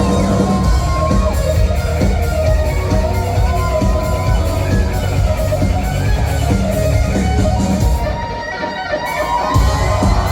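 Rock band playing an instrumental passage: an electric guitar line over bass and drums, which thin out briefly about eight seconds in before the full band comes back.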